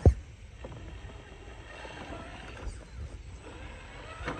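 Element Enduro RC rock crawler working its way up a rock face, its electric motor and drivetrain running faintly under steady background noise. A single sharp, low thump comes right at the start.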